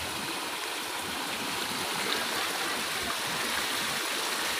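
Muddy floodwater flowing fast over the ground: a steady rushing of water.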